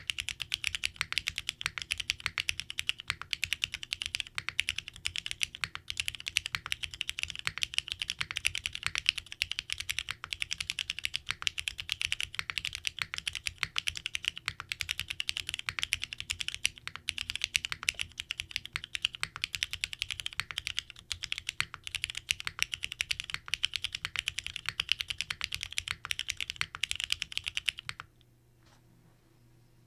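Fast, continuous typing on a NEO80 tenkeyless mechanical keyboard built with a polycarbonate plate, gasket-dumbbell mount and no foam, with lubed and filmed Cherry MX Black linear switches on 63.5 g long springs. The typing stops about two seconds before the end.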